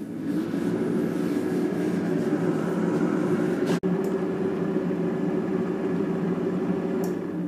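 Cosori air fryer's fan running steadily as it preheats, spinning up in the first half-second. A split-second break in the sound about four seconds in.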